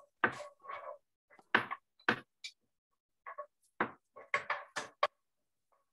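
About nine sharp knocks and clatters, irregularly spaced: a chef's knife striking a wooden cutting board as mushrooms are sliced, then utensils and food against a metal frying pan as the slices go in.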